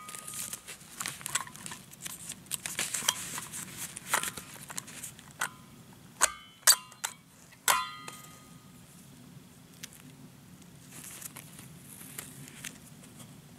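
Hands rustling and smoothing out a newspaper, the paper crackling in short bursts. A little past the middle come four sharp clinks, each with a brief ring.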